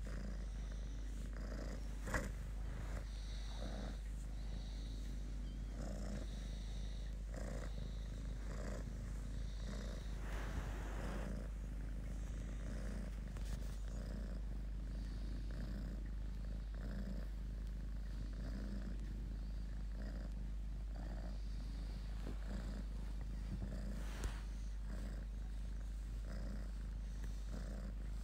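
A domestic cat purring steadily and evenly while being stroked.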